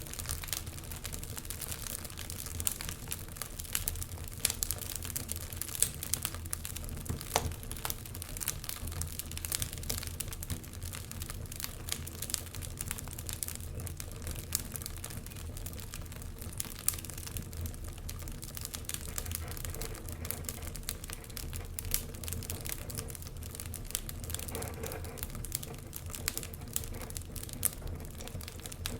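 Wood fire burning in a fireplace, crackling with frequent irregular small pops over a steady low rumble of the flames.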